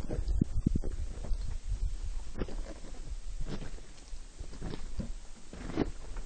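Footsteps on a hiking trail, a soft step about once a second, over a low rumble of wind on the microphone.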